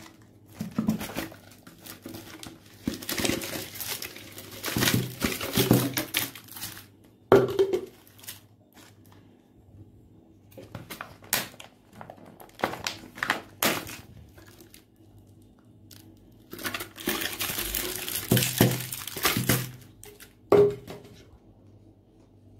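Cellophane lollipop wrappers crinkling as the lollipops are handled and pulled out of clear plastic tubes. Two long stretches of rustling are broken by a few sharp clicks and knocks of the plastic tube and its cap.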